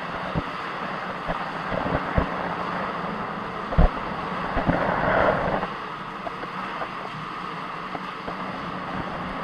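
Water rushing and churning through a turning Archimedes screw, heard from inside the screw at the water surface, with scattered knocks, the loudest about four seconds in.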